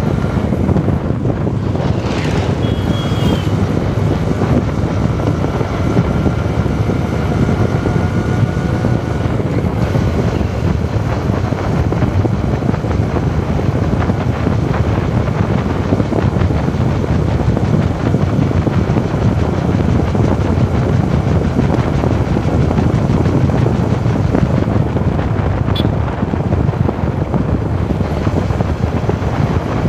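Wind rushing over the microphone of a moving motorcycle, with the engine and tyre noise running steadily beneath it.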